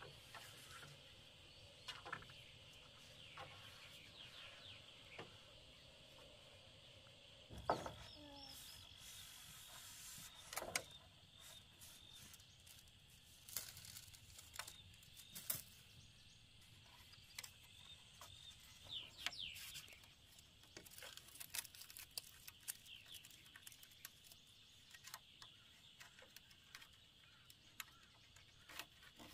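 Quiet rural ambience: a faint steady high hum under scattered light knocks and clicks from bamboo poles being handled and tied, with a few faint bird chirps.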